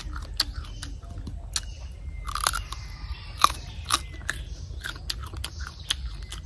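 A person chewing a bite of crisp, unripe green mango close to the microphone: an irregular run of sharp crunches and crackles, a few louder ones in the middle.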